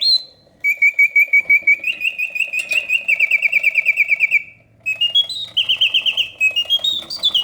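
Vintage 1970s Reuge double singing bird cage automaton singing on its continuous setting: its bellows-and-piston whistle plays rapid trills of short chirps, breaks off briefly twice, then runs into faster notes stepping up in pitch. The mechanism is freshly serviced and running smoothly.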